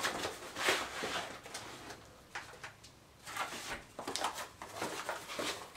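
Rustling and crinkling of a plastic-wrapped padded parcel being handled and opened by hand, in a string of short rustles.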